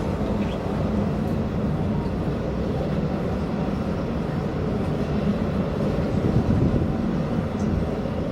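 Helicopter running: a steady low rumble of rotor and engine noise.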